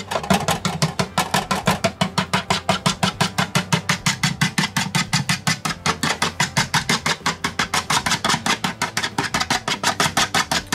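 Small wire whisk beating quail eggs in a plastic bowl, clicking against the bowl at a fast, even rhythm of about seven strokes a second.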